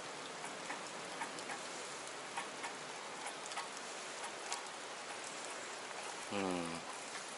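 Water drops pattering on a stream's surface: a steady hiss dotted with many small ticks. About six seconds in, a brief low hum falls in pitch over half a second.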